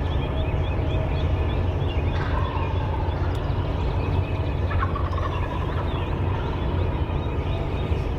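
Wild turkey gobbling twice, about two and five seconds in, over small songbirds chirping and a steady low rumble.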